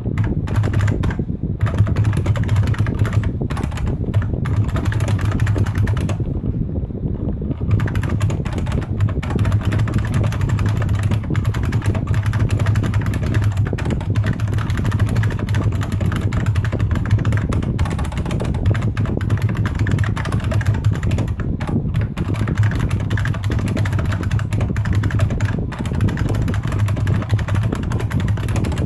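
Fast, continuous typing on a Unicomp Ultra Classic buckling-spring keyboard, a dense run of loud key clacks that thins briefly about six seconds in, over a low steady hum.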